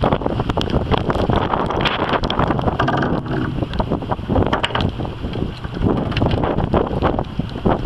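Strong wind buffeting the microphone in irregular gusts and crackles, over a steady low rumble.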